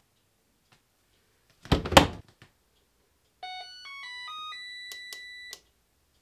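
Whirlpool front-load washer door slammed shut with a single loud thump. About a second and a half later the washer's control panel plays a short electronic chime of stepped beeps, ending in a held tone with a few clicks as the cycle is set.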